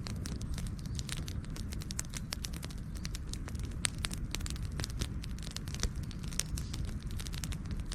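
Wood fire crackling: many irregular sharp pops and snaps, several a second, over a steady low rumble of the flames, with a few louder pops.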